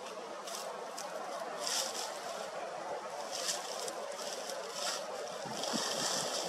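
Steady wind and water noise, a constant rush with several brief, irregular hissing surges.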